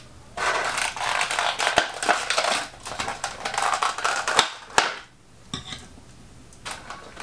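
Clear plastic packaging insert of a Funko Pop box crinkling and crackling as it is slid out and the vinyl figure is pulled from it, with a few sharp clicks; it dies down about five seconds in, leaving a few small handling sounds.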